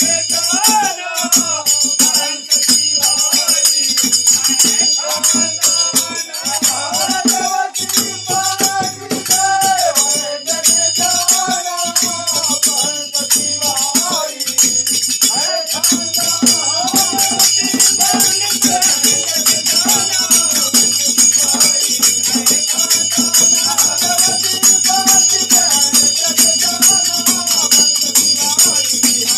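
A group of men singing fagua, a Holi folk song, together, to a dholak drum beaten in a steady rhythm and a constant jingle of metal percussion.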